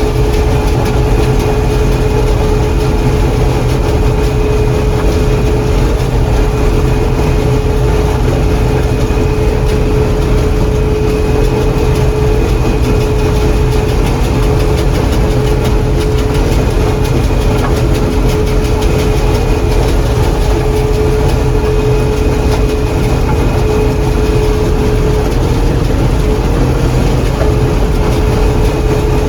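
John Deere 4400 combine running steadily while harvesting corn, heard from the cab: a constant heavy engine and machinery drone with a steady whining tone over it.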